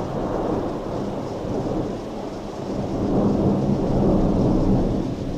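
Thunder rumbling, the roll growing louder about three seconds in and staying strong until near the end.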